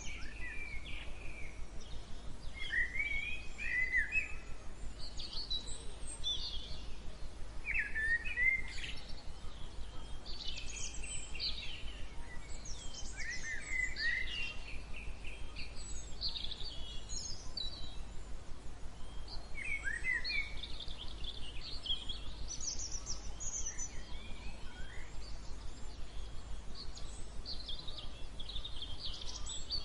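Several songbirds singing and chirping in a mix of short trills and calls, over a steady low background rumble.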